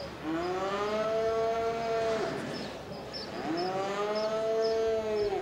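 A cow mooing twice: two long calls, each rising in pitch and then held, about a second apart.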